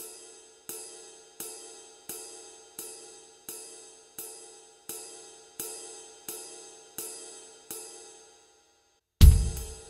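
Electronic drum kit's ride cymbal sound struck in a steady beat, about one and a half strokes a second, each stroke ringing out. After a brief silence near the end comes a much louder hit with the bass drum.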